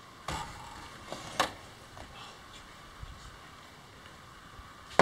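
A large, stiff, freshly demolded fiberglass kayak piece being lifted and handled: a scraping rustle near the start, a sharp knock about a second and a half in, then a few small clicks.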